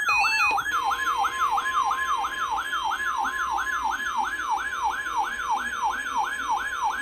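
A weather radio's alert siren warbling in fast, even sweeps about three or four times a second, with the steady 1050 Hz NOAA Weather Radio warning alarm tone starting under it about half a second in. Together they announce an incoming warning, here a flash flood warning.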